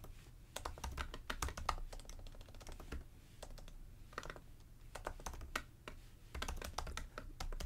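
Computer keyboard keys tapped in short, irregular bursts of clicks as a line of text is typed.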